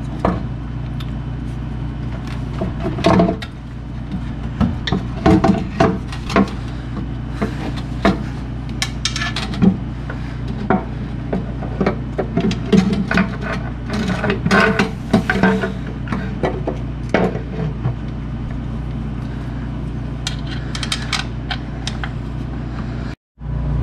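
Workshop hand-work noises: scattered clicks, knocks and scraping of tools and metal parts, over a steady low hum. The sound drops out for an instant near the end.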